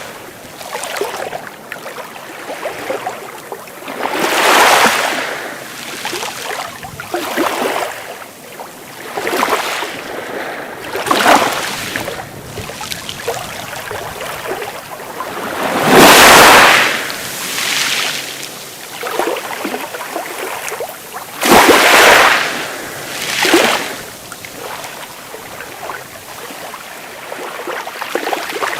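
Sea waves breaking and washing in, a rush that swells and fades every two to three seconds, with the two biggest waves a little past halfway.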